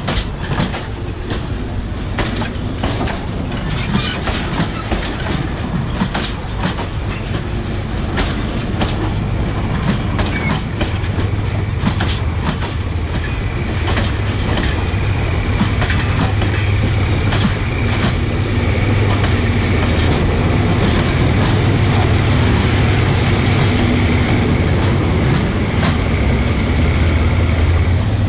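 Passenger coaches rolling over a railway turnout, their wheels clicking irregularly as they cross the switch points and rail joints, with a faint wheel squeal in the middle. A steady low rumble builds through the second half.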